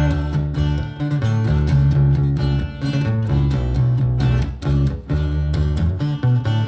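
Live music: an instrumental passage of the song, a baritone guitar with effects playing steady low bass notes with plucked notes over them in an even rhythm.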